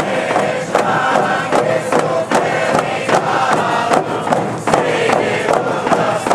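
Indigenous hand-drum song: several voices chanting together over a steady beat of a frame drum, amid the noise of a large crowd.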